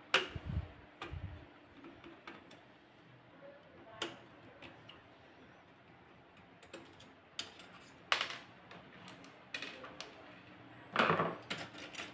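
Screwdriver and small screws clicking and tapping against the metal frame and plastic parts of a stripped-down HP LaserJet P1102 laser printer as its circuit board is unscrewed. The clicks come singly and irregularly, with a louder clatter about eleven seconds in as the board is handled.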